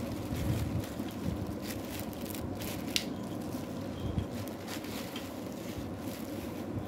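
Clear plastic wrap crinkling and rustling as a folded metal tripod easel is slid out of it, with a couple of sharp clicks along the way.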